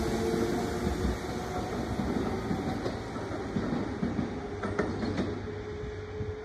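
Kintetsu 22600 series Ace and 22000 series ACE limited express train running away along the track, its hum and wheel noise fading as it pulls into the distance, with a few clicks of wheels over rail joints about five seconds in.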